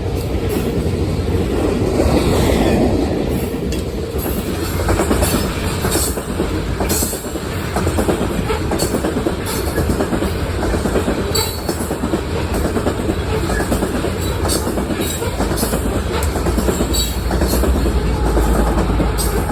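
Loaded coal train's cars rolling past: a steady rumble of steel wheels on rail, with irregular clicks and clacks as wheels cross rail joints. A deeper low rumble swells near the end.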